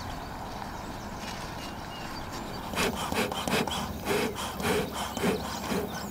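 Bee smoker being lit and stoked with dry grass until it pours thick smoke. After a quiet start, from about three seconds in there is a string of short rubbing strokes, several a second.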